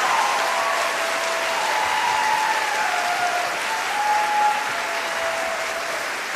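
Audience applauding, with a few long cheering voices held over the clapping; the applause eases slightly toward the end.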